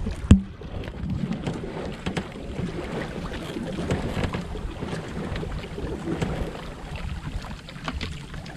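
Wind buffeting the microphone on a small boat at sea, with one sharp knock about a third of a second in.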